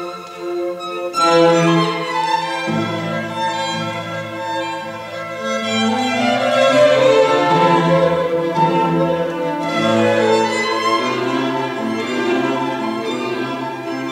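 String quartet playing classical chamber music live, with violins and lower strings bowing sustained lines together. The texture fills out a couple of seconds in, when the lower part joins.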